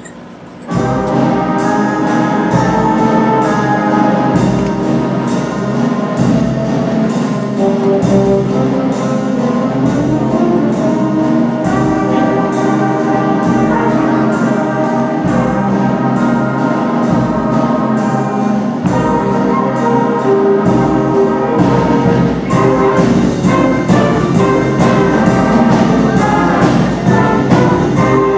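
Middle school symphonic band playing a swinging holiday tune, with brass in front and a steady beat. The band comes in all at once about a second in.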